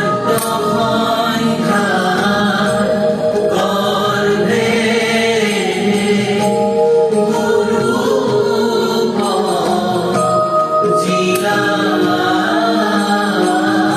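Music with chant-like group singing over held instrumental tones.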